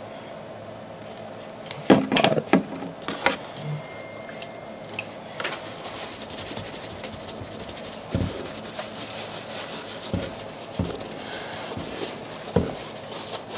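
Small bristle brush scrubbing the rubber outsole of a sneaker wet with cleaning solution: a fast, scratchy rubbing that runs from about five seconds in, with a few sharp knocks about two seconds in and some dull bumps from handling the shoe.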